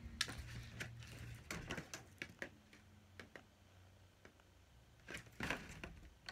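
Faint handling noise of a cardboard toy box and small plastic doll accessories: scattered light clicks and rustles, with a louder rustle about five and a half seconds in as the box is moved.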